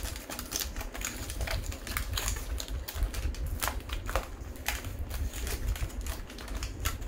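Aluminium foil takeaway container being opened by hand: the crimped foil rim is bent back and the card lid pried off, giving many irregular sharp crinkles and crackles.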